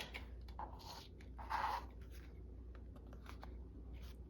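Paper card being handled as its corners are rounded: a short scraping rustle about one and a half seconds in, a weaker one before it, and a few light ticks.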